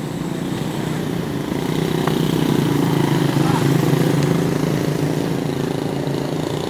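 Coach bus diesel engine running as the bus moves off, swelling to its loudest about halfway through and then easing off a little.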